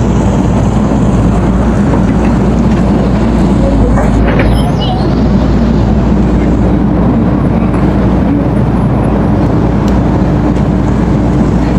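Excavator's diesel engine running loudly and steadily, with a steady low tone joining about halfway through.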